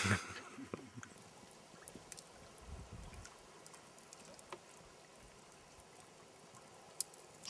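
Faint lakeside ambience with soft water sounds and a few small scattered clicks, after a short loud noisy burst right at the start.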